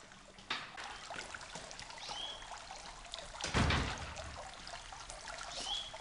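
Small courtyard fountain trickling and splashing steadily into its stone basin. A couple of short chirps sound over it, and there is one louder thump about halfway through.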